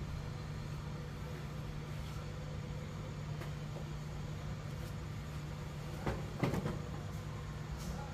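Steady low electrical hum with even fan-like hiss from the running repair-bench equipment, broken by a few brief handling sounds about six seconds in.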